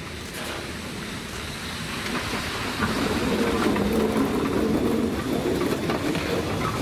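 SBB Ee 3/3 electric shunting locomotive rolling past on depot track, its wheels and running gear rumbling on the rails, growing louder about halfway through, with wind buffeting the microphone.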